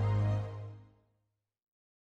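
The last held chord of a song fades out and is gone just under a second in.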